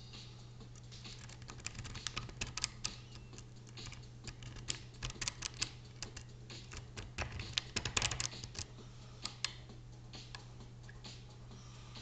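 Hook pick raking and setting the pins of a Mauer MLS euro-profile lock cylinder: irregular quick metallic clicks and ticks in clusters, busiest about two and eight seconds in, thinning out near the end.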